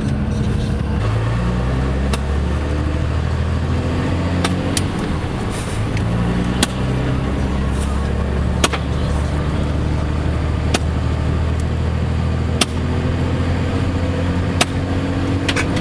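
A vehicle driving, heard from inside: a steady low engine hum whose pitch shifts now and then, over road noise. A sharp tick sounds about every two seconds.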